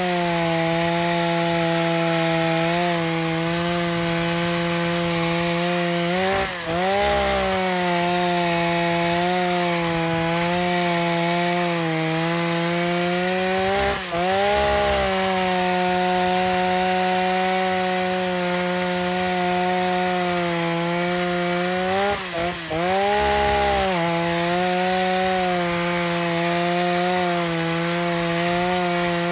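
STIHL 045 AVEK two-stroke chainsaw cutting through a thick oak log, the engine running steady and pulled down under load. Its pitch rises briefly three times, about a quarter, halfway and three quarters through, as the bar comes free between cuts, then drops back as it bites into the wood again.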